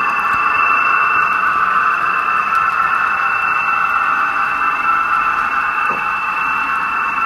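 Model railway goods train rolling past close by: a steady hiss of wagon wheels running on the track, with a steady high-pitched whine over it.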